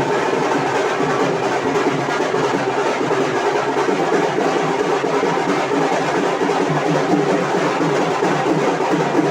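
Drums being played continuously, a dense run of beats with no pause.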